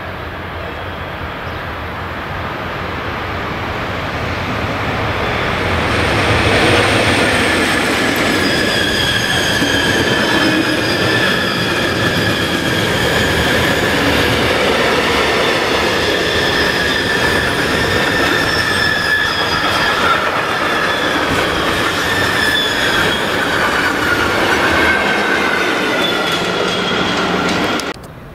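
Freight train of silo tank wagons and covered hopper wagons rolling past close by. Its wheels rumble steadily on the rail, with high squealing tones ringing over the rumble. The sound grows louder over the first six seconds and breaks off abruptly near the end.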